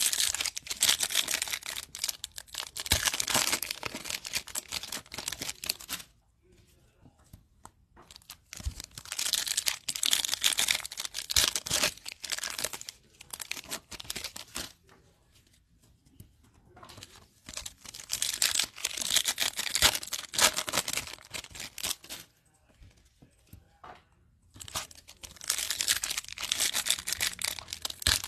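Foil wrappers of Topps Chrome baseball card packs being torn open and crinkled, in four bursts of several seconds each.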